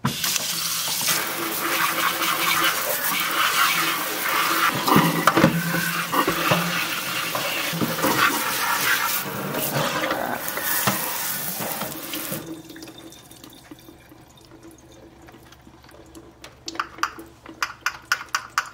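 Tap water running and splashing over a small plastic fan's grille in a stainless steel sink, cutting off about two-thirds of the way through. Near the end comes a quick run of light clicks and taps.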